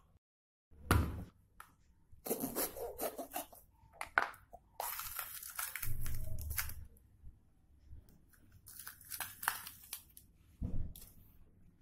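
Hands tearing open a green capsicum and pulling out its seed core on a plastic cutting board: crisp, irregular tearing and snapping of the pepper flesh, with a dull knock about a second in and another near the end.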